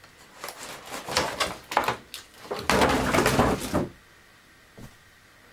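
Clear plastic packaging crinkling and crackling as it is handled, in a run of rustles lasting about three seconds that grows loudest toward its end, followed by a faint click.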